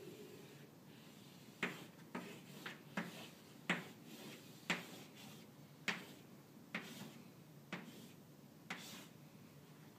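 Chalk on a blackboard: sharp taps and short scraping strokes, about one a second, as squares and a cube are drawn.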